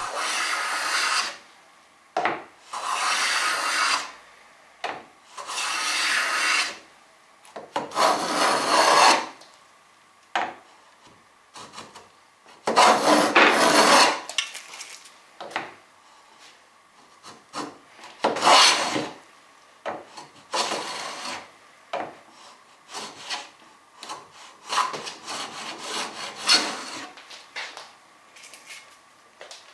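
Rebate plane taking shavings along the edge of a wooden board: a series of long cutting strokes, each a second or more, with pauses between them, giving way to shorter, quicker scraping strokes in the last third.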